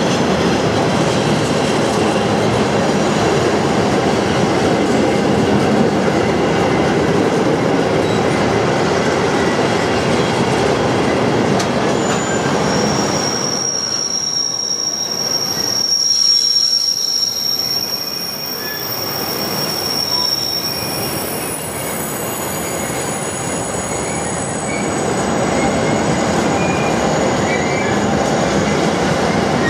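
Freight train of covered car-carrier wagons rolling past at close range: a steady, loud rumble of steel wheels on rail. From about thirteen seconds in, a high steady squeal from the wagons' running gear holds for about eight seconds.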